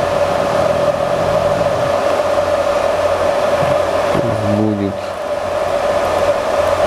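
Steady whir of a fan running on an Everlast PowerTIG 210 EXT inverter TIG welder, switched on and idling while its amperage knob is turned. A short hum-like voice sound comes in about four seconds in.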